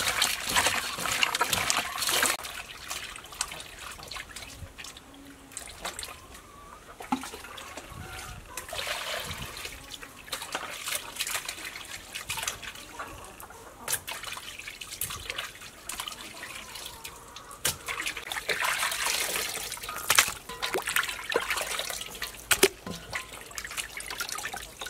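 Raw pork intestines being kneaded with salt and wrung out by hand over a basin of water: wet squishing, with water trickling and dripping back into the basin in uneven bursts and a few sharp taps.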